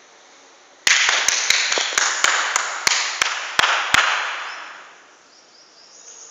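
A small group of people clapping for about three seconds, with loud single claps close to the microphone at about three a second, dying away.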